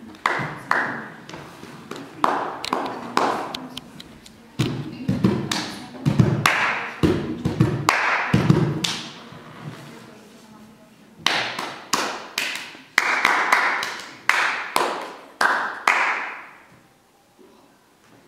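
Irregular runs of hand claps and slaps, with heavier hollow thumps on a suitcase in the middle stretch, fading out near the end.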